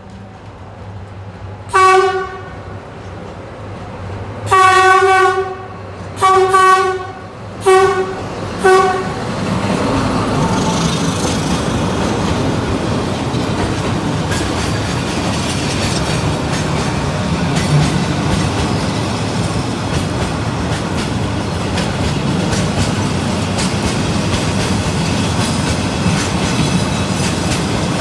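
D10H diesel locomotive sounding its horn in five blasts: a short one, a longer one, then three short. The train then passes close by in a steady rumble of engine and wheels clattering over the rail joints.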